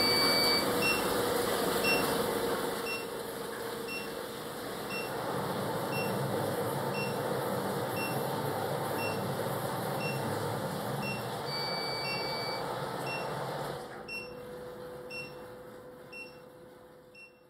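DC battery-backup sump pump running steadily while pumping water through its PVC discharge pipe. Short electronic beeps repeat about twice a second, with two longer beeps, one at the start and one about twelve seconds in. The sound fades out over the last few seconds.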